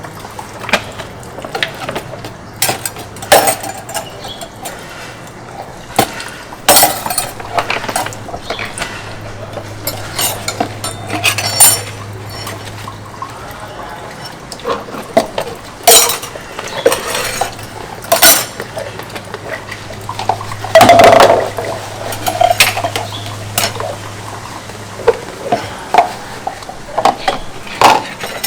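Dishes and cutlery clinking and knocking together as they are washed by hand, in irregular strikes, with a longer, louder clatter about two-thirds of the way through. A low steady hum underneath stops near the end.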